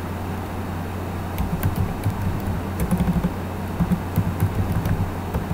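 Computer keyboard keys being typed in short clusters of clicks with pauses between, over a steady low hum.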